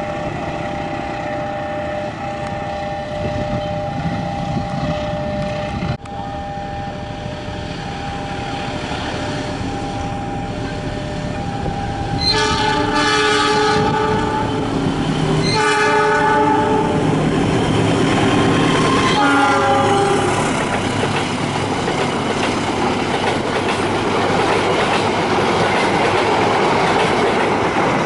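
Diesel locomotive horn sounding three blasts, the first the longest, as a train approaches. The train then runs past with its wheels clacking over the rail joints. Earlier there is a steady tone over the rumble.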